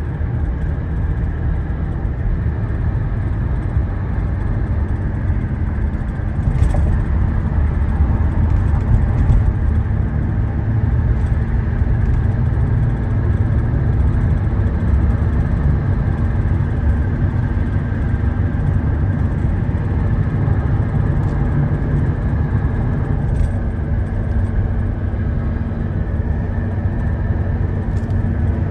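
Car driving at steady speed: continuous engine and tyre rumble with a low hum, and a few brief faint clicks along the way.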